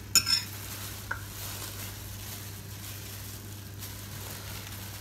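A clear plastic bag rustles briefly as it is handled, just after the start, with a small click about a second in. After that there is a steady hiss over a low, even hum.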